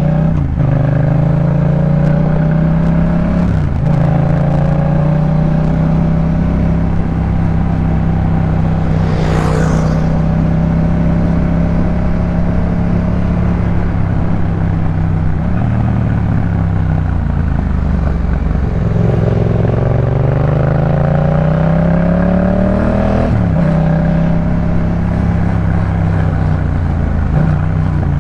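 Yamaha MT-07's parallel-twin engine running through a Jeskap K4 full exhaust system while riding. The engine note holds steady for long stretches, then drops and climbs again with throttle and gear changes, with a brief hissing rush about nine seconds in.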